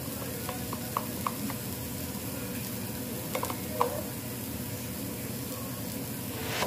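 Steady sizzling of food frying in a pan, with a few light clicks of a metal spoon against small ceramic bowls as ssamjang is spooned in.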